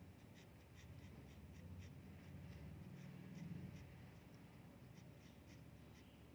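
Faint scratching of a pen writing by hand on paper, in a quick run of short strokes.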